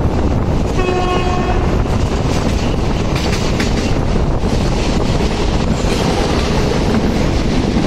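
Passenger train running, heard from on board: a steady, loud rumble of wheels on the track, with a short train horn blast about a second in.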